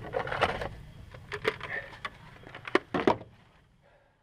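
Irregular knocks and clicks of footsteps and equipment handling while a chainsaw is carried. The sound cuts off suddenly about three seconds in.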